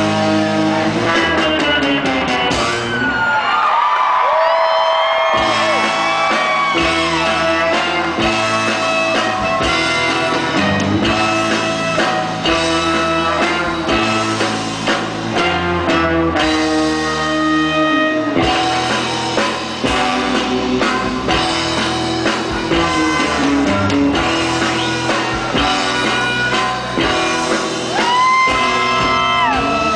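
Live band music played loud on stage. The low end drops out for about two seconds roughly three seconds in, under a sliding melodic line; another sliding line comes near the end.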